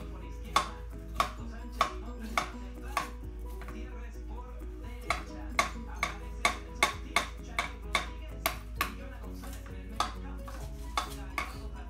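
Knife chopping onion on a granite board: sharp clacks of the blade hitting the stone, about two a second, then after a short pause a faster run of about three a second, then a few scattered strikes.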